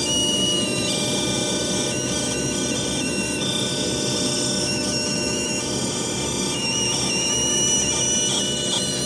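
CNC router spindle running a 1/8-inch end mill, cutting slowly into a wooden fretboard: a steady machine noise with a high whine that shifts in pitch and drops in and out now and then as the cut moves.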